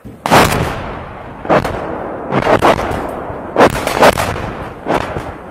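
Artillery fire: about seven loud blasts at irregular intervals, some in quick pairs, each with a rumbling tail, cutting off suddenly at the end.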